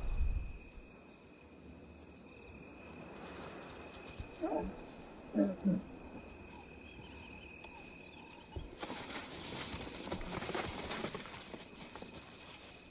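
Lions giving soft, short calls, three brief ones close together midway: contact calls telling the cubs it is safe to come out. Insects chirr steadily throughout, and a few seconds of rustling come after the calls.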